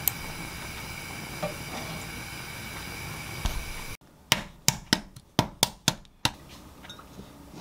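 Steady hiss of a gas burner heating a saucepan of water for boiling an egg. After about four seconds it gives way to seven or so sharp taps as a boiled egg's shell is knocked against the counter to crack it, then the faint crackle of the shell being peeled.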